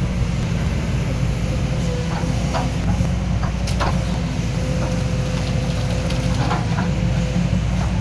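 Excavator diesel engine running steadily under work, with a thin steady whine above the engine and a few short knocks scattered through.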